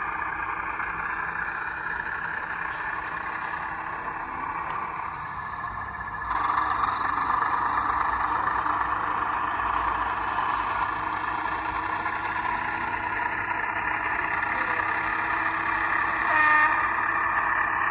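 Class 14 diesel-hydraulic locomotive sound, with its Paxman Ventura engine, played by a Zimo sound decoder through a small speaker in a OO gauge model. The engine runs steadily, getting louder about six seconds in, and a short horn note sounds near the end.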